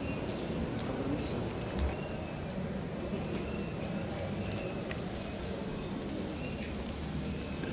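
Crickets trilling steadily at a high pitch, over a low background rumble, with one soft thump about two seconds in.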